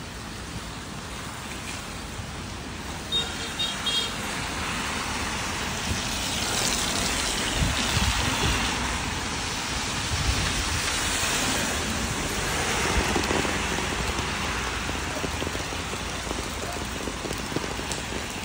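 Rain falling on a wet city street with traffic: a steady hiss, with tyres swishing on the wet road as vehicles pass, swelling twice in the middle. A few short sharp sounds about three seconds in.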